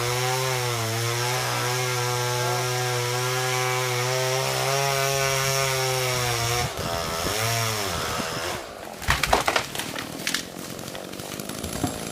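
Chainsaw running steadily while cutting into a tree trunk. About seven seconds in its engine note dips and rises, then it cuts out. A burst of sharp cracks and knocks follows.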